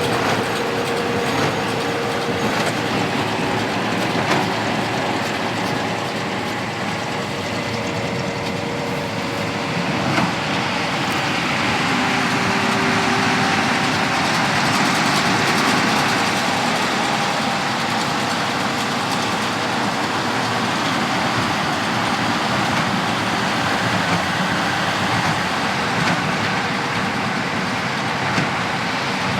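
John Deere tractor pulling a Massey Ferguson 2150 large square baler through wheat straw, the tractor engine and baler running steadily.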